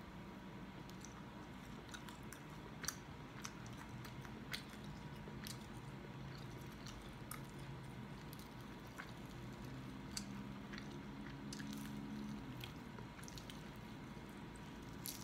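Chewing, with sharp, scattered crackles as the crispy skin of a deep-fried pork hock (lechon kawali) is torn apart by hand and eaten.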